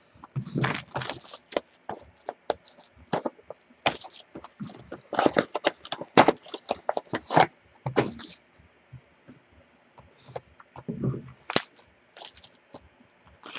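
A sealed trading-card box being opened by hand: shrink-wrap slit and torn off, the box and its contents handled, and cellophane wrapping crinkled. It comes as a string of sharp, irregular crackles and clicks with a short lull a little past the middle.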